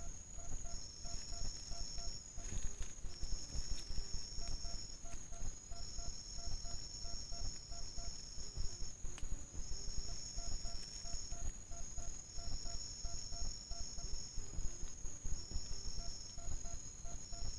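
Night insects trilling: high-pitched steady trills that break off and resume every second or two, with a lower call of quick repeated beeps coming in runs, over a rough low rumble.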